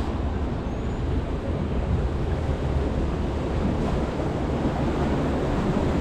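Steady rushing of water in a river-rapids ride channel around a round raft, with a low rumble of wind on the microphone.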